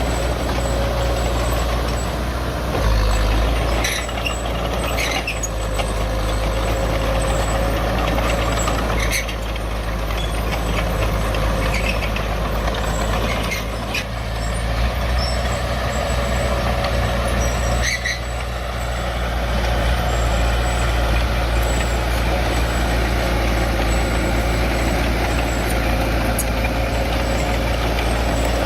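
Heavy diesel earthmoving machinery running steadily under load, with a few sharp metallic clanks at intervals.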